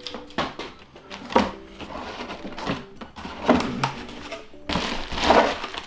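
Cardboard packaging being handled inside a chainsaw box: scattered knocks and scrapes as inserts and parts are shifted, with a longer rustle about five seconds in.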